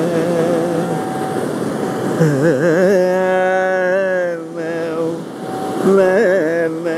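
Male Carnatic vocalist improvising in Rāga Bhairavi, singing held notes with oscillating gamakas in phrases separated by brief pauses. Underneath are a tambura drone and the steady rush of ocean surf.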